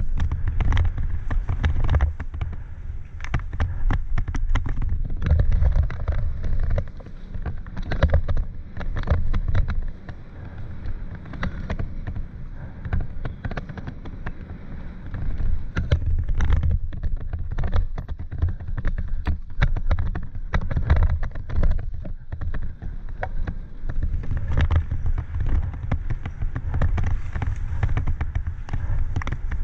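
Mountain bike ridden fast down a dirt singletrack, heard from a helmet-mounted camera: a constant low rumble with many sharp clicks and rattles from the bike and its tyres over rough ground.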